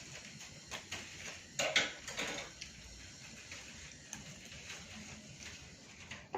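Eating sounds: chewing, and a spoon clinking and scraping on a plate in short scattered strokes, the loudest cluster about two seconds in.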